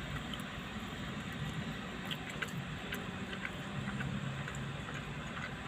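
Steady low hum of a vehicle engine, with a few faint clicks.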